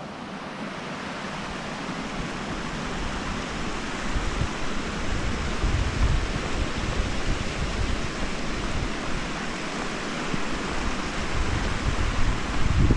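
Mountain stream rushing steadily, with wind buffeting the microphone in gusts that grow stronger from about four seconds in.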